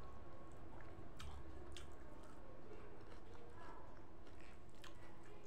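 Close-up chewing of a mouthful of food, with a few sharp clicks from the mouth scattered through it, over a steady low hum.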